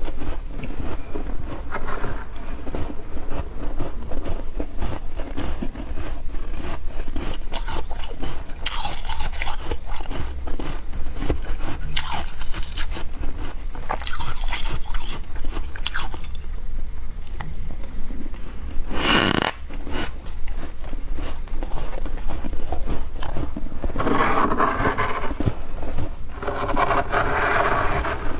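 Close-miked crunching and chewing of freshly formed frost, eaten by the spoonful with spoon scrapes. A few louder crunches stand out among the steady crackle of chewing.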